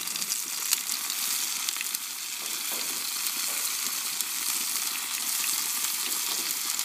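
Vegetables with freshly added peppers sizzling steadily in hot oil in a paella pan over a very hot grill, with many small scattered pops.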